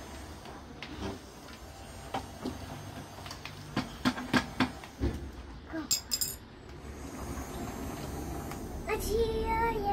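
A run of sharp clicks and knocks, several close together in the middle, as small objects are handled, then a child's voice starting to sing near the end.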